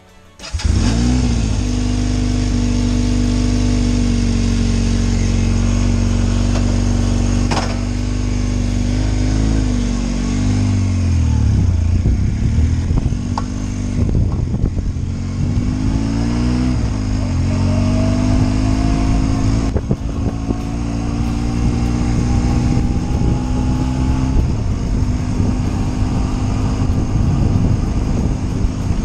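1981 Kawasaki KZ440 C's parallel-twin engine catching about half a second in, then idling steadily. From about nine seconds it revs as the bike pulls away and rides off, the pitch rising and falling with throttle and gear changes.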